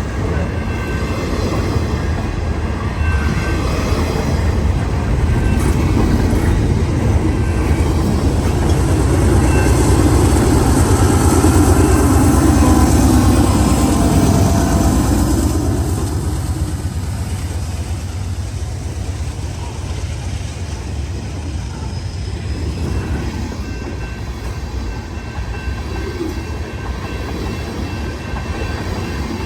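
Freight train passing on the track, a continuous rumble of wheels on rail that grows to its loudest about halfway through and then eases to a steady, lower level.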